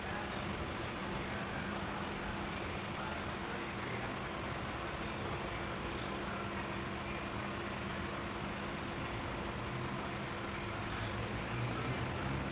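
Steady background noise with a low hum.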